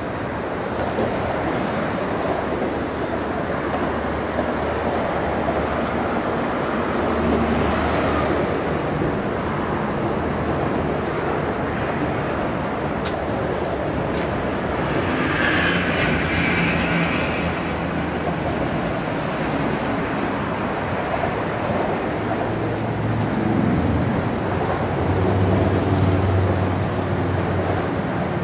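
Road traffic passing over a concrete road bridge overhead: a continuous rumble and hiss that swells and fades, with a brief higher-pitched sound about halfway through.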